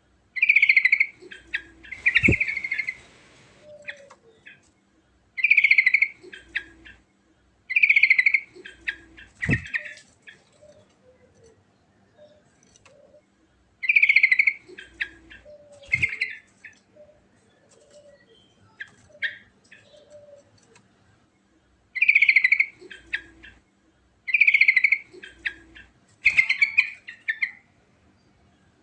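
Yellow-vented bulbul (trucukan) singing: short, bubbly song phrases repeated about a dozen times, mostly in pairs with brief pauses between. A few sharp clicks fall between the phrases.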